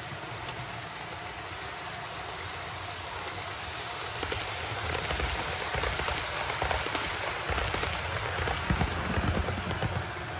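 OO gauge model train running along the track. From about four seconds in it grows louder, with a rapid crackle of clicks from the wheels over the rail joints, which eases near the end.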